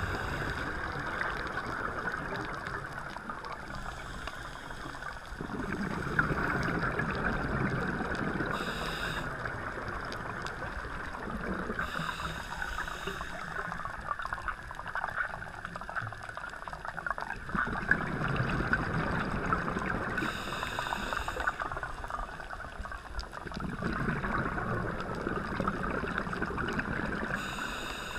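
Underwater ambience heard through a submerged camera: a steady dense crackling hiss of the reef water. A low rushing, bubbling swell rises and fades every five or six seconds.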